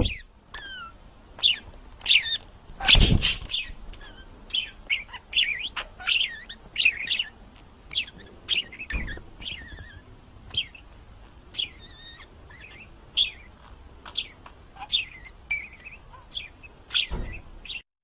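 Small bird chirping over and over in quick, varied high chirps and short whistles, with a louder burst about three seconds in.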